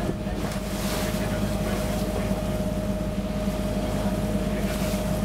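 Boat engine running at a steady hum, with wind and water noise.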